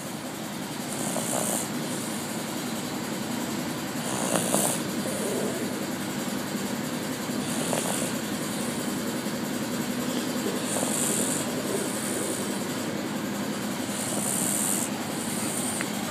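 Baby snoring in sleep, a breathy rasp recurring about every three seconds with softer breaths in between, over a steady background hiss.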